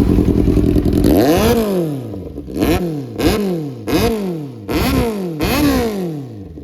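Kawasaki inline-four motorcycle engine idling for about a second, then about six quick throttle blips, each rising and falling in pitch. The exhaust still has its dB killer fitted.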